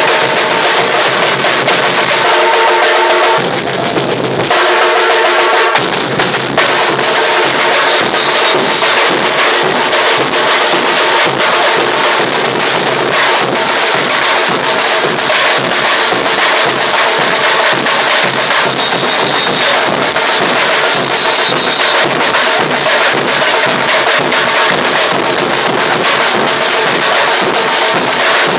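Bateria drum section playing a continuous, dense percussion groove of bass drums and snares during a warm-up rehearsal. The bass drums drop out briefly about four seconds in, then come back.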